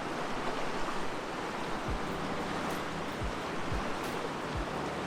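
Steady rush of a river flowing close by, with a few short low thumps from about two seconds in.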